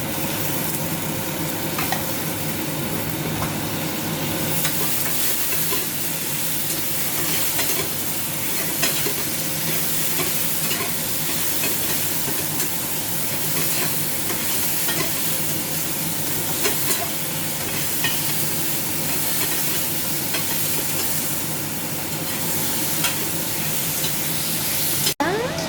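Chicken coconut curry sizzling in the pan while it is stirred, a steady hiss with scattered small clicks of the utensil against the pan. The sound drops out abruptly just before the end.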